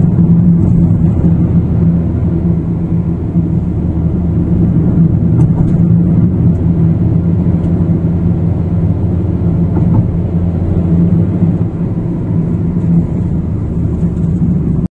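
Car driving, heard from inside the cabin: a steady low engine and tyre rumble on the road.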